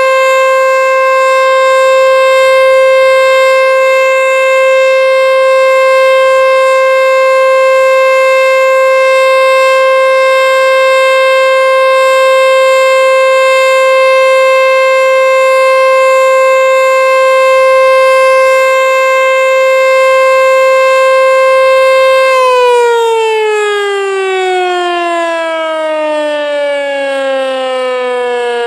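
American Signal Tempest T-121 outdoor warning siren sounding its steady alert tone. About 22 seconds in it starts winding down, the pitch falling smoothly and continuously as the alert cycle ends.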